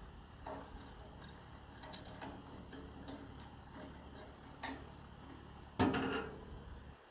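Hand metal file scraping and clicking against the edge of a double-bit axe in a few irregular strokes, with one louder, longer scrape near the end.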